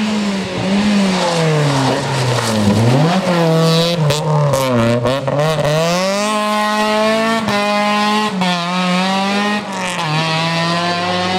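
Rally car engine at full effort through a corner: the revs fall as it brakes and downshifts, then climb again and again through several gear changes as it accelerates away. A few sharp cracks come through about four to five seconds in.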